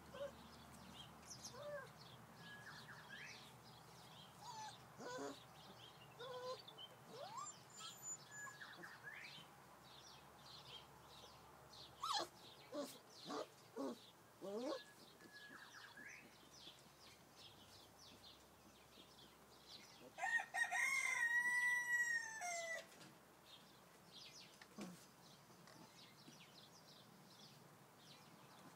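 A rooster crowing once, about two-thirds of the way through: a few short notes and then a long arching call. Before it come scattered short, faint squeaks and chirps.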